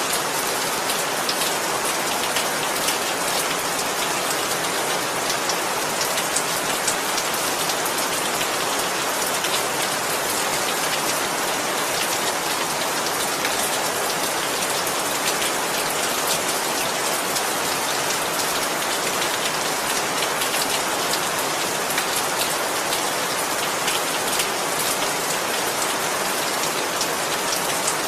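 Steady rain falling and pattering on a surface, an even hiss of many drops with no thunder.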